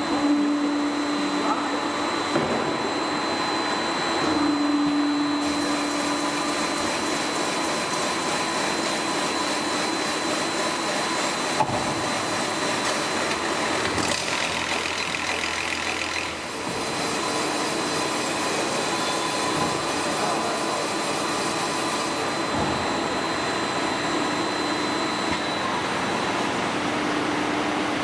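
Trimming and polishing machine for LPG cylinder halves running, its chuck spinning the steel cylinder half: a steady mechanical whirr with a low hum and a faint high whine, dipping briefly about sixteen seconds in.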